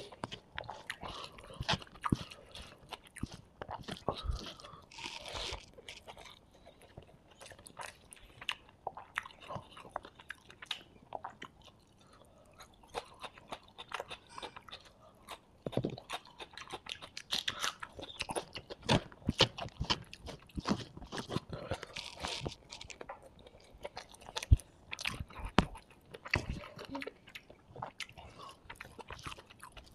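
Close-miked eating: crunching, chewing and biting through mouthfuls of fried rice and curry eaten by hand, with many short sharp crunches and mouth clicks, louder in the second half.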